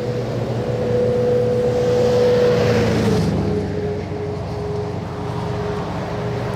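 A vehicle driving past. Its road noise swells and fades, loudest around two to three seconds in, and a steady whine drops in pitch as it goes by.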